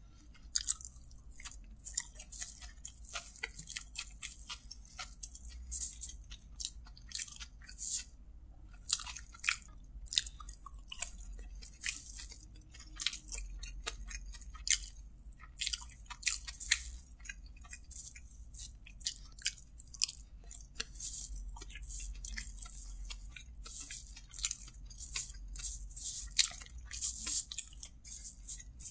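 Close-miked eating sounds as a man eats kottu roti by hand: chewing and wet mouth smacks, with irregular sharp clicks and crackles throughout.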